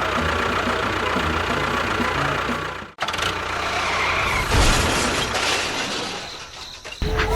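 Small motor running with a steady mechanical rattle, cut off abruptly about three seconds in, then a second stretch of machine noise that fades away before another sharp cut near the end.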